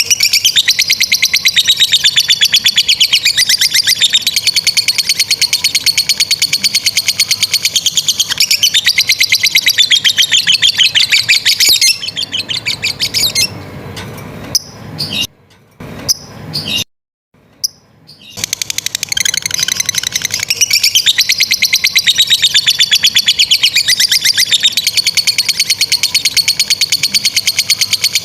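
Lovebirds giving the long, rapid 'ngekek' chatter: a fast, stuttering high-pitched trill held in long unbroken bouts. About halfway through it falters and drops out for a few seconds, then the chatter starts up again.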